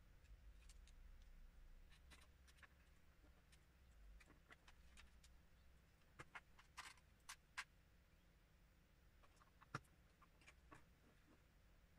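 Faint, sparse clicks and taps of plastic LEGO bricks being handled and pressed together while building a small model, with a cluster of clicks about halfway through and a single sharper click near the end, over a low background hum.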